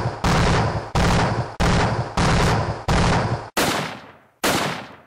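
A run of loud gunshot-like blasts, one about every two-thirds of a second, the last two spaced a little wider and ringing out longer.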